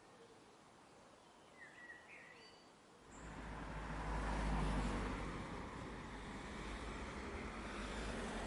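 Outdoor spring ambience: a bird chirps a few short notes, then about three seconds in a deep, rushing noise swells up, peaks and holds on.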